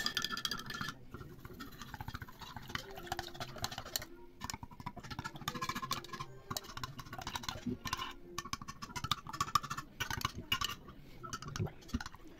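Fingers stirring salt into water in a glass jar: the undissolved grains scrape on the glass in a fast run of small scratching sounds and light clinks.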